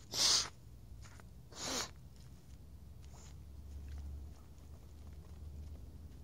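Footsteps in flip-flops crunching on sand: two loud steps right beside the microphone in the first two seconds, then fainter steps as the walker moves away.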